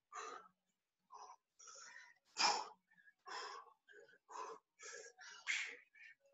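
A person breathing hard and fast while exercising: sharp puffs of breath about every half second, the loudest about two and a half seconds in.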